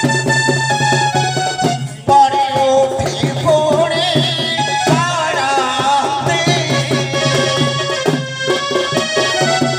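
Traditional Odia folk music accompanying Danda Nacha: a reed instrument holds a melody over a drum beat. About two seconds in the music drops out briefly and comes back louder, with a wavering melody line.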